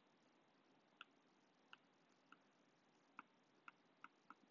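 Near silence broken by faint, irregularly spaced light ticks, about seven of them from about a second in: a stylus tip tapping a tablet's glass screen while handwriting.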